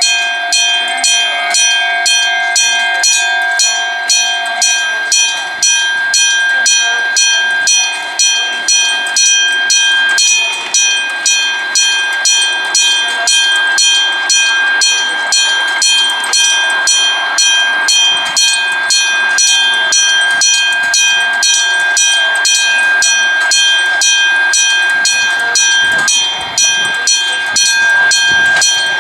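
Japanese railway level-crossing warning bell ringing, a rapid, evenly repeated ding of about two to three strokes a second, signalling that a train is approaching and the barriers are down.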